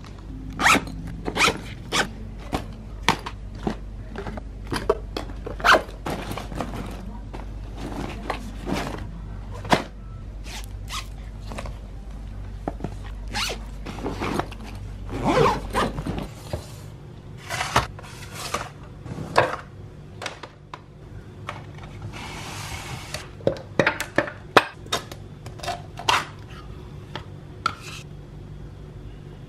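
A fabric school backpack being handled: a run of short knocks, scrapes and rustles as it is moved and things go in and out, with a zipper pulled once for about a second about three quarters of the way through.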